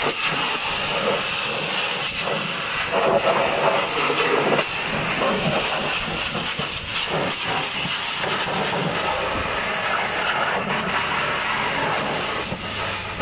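High-pressure washer lance jetting water onto a truck's tyre, wheel rim and wheel arch: a continuous loud hiss of spray. The spray sound swells for a second or so a few seconds in as the jet moves across the wheel.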